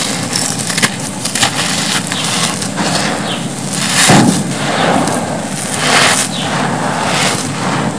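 Dry, gritty cement crumbs and dust squeezed and crumbled by hand in a cement tub: a dense run of crackling crunches with grit sifting through the fingers. The loudest crunch comes about halfway through.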